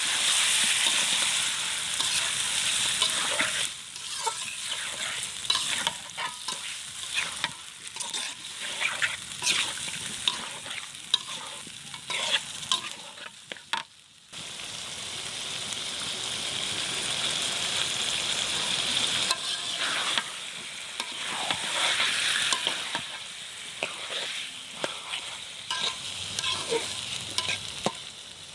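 Food sizzling as it fries in hot oil in a pan, stirred with a utensil that scrapes and clacks against the pan again and again. The sizzle drops away briefly about halfway through, then comes back suddenly.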